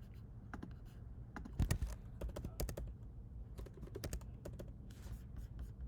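Typing on a computer keyboard: irregular keystrokes and clicks, with a louder cluster about a second and a half in.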